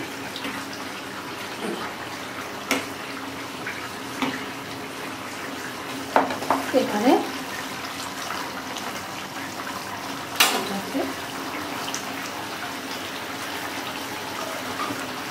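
Prawn curry simmering in a pan on a gas burner, a steady hiss throughout. Utensils clatter a few times about six to seven seconds in, and there is a single sharp knock about ten seconds in.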